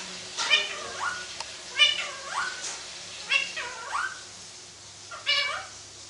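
Rose-ringed parakeet mimicking a cat's meow: four meow-like calls about a second and a half apart, each ending in a rising slide.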